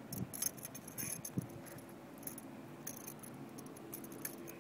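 Metal hooks and split rings of a fishing lure jingling and clicking in short irregular bursts as the lure is worked free of a northern pike's mouth.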